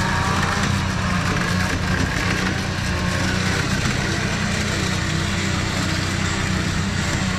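Off-road 4x4's engine running steadily at low revs as the vehicle crawls up a steep muddy trail.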